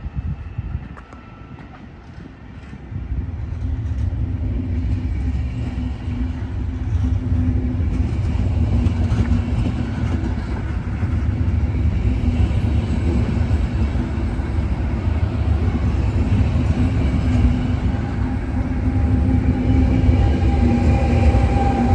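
Passenger train hauled by Trenitalia E402B electric locomotives moving through the station: a heavy low rumble that swells in about three seconds in and holds, with steady whining tones over it and higher tones joining near the end.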